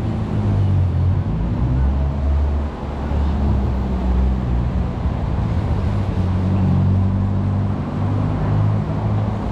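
Steady low rumble of road traffic, with a vehicle engine running close by.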